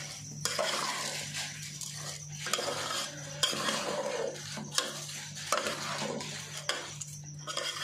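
Metal spatula stirring soaked rice into a spiced soybean-and-vegetable masala in a metal pot: an uneven scraping and shuffling of grains, with several sharp clicks of the spatula against the pot.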